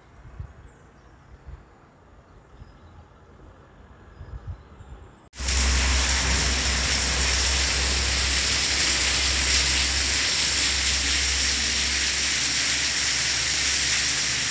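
Light wind rumbling on the microphone at first. About five seconds in, loud, steady heavy rain comes in abruptly, a dense hiss with wind buffeting the microphone.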